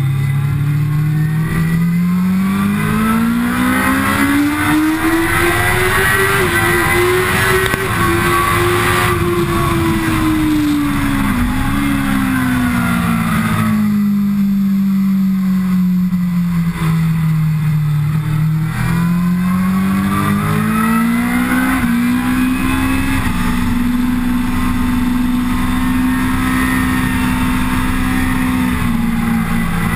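Kawasaki ZX-10R's inline-four engine at full track pace, heard from onboard over steady wind rush. The engine note climbs for several seconds, falls away through the middle, climbs again and then holds steady.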